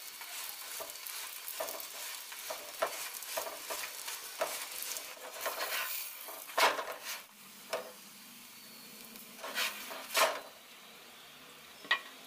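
Paratha sizzling as it fries in oil in a non-stick pan, with a run of short scrapes and taps from a spatula pressing and shifting it. Several louder knocks come in the second half.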